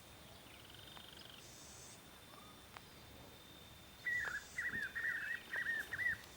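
A bird calling in a quick run of short, repeated notes for about two seconds, starting about four seconds in, over a faint outdoor background of distant trilling.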